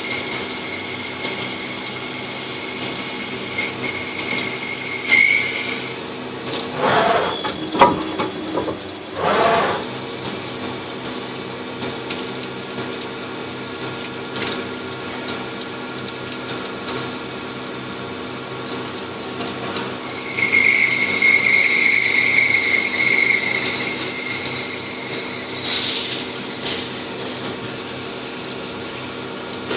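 CNC machine running: a steady mechanical hum throughout, with a high whine near the start and again for a few seconds past the two-thirds mark, and several short bursts of rushing noise.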